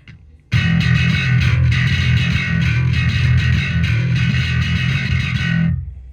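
Electric bass guitar with a distorted tone playing a run of picked notes, starting about half a second in and dying away near the end.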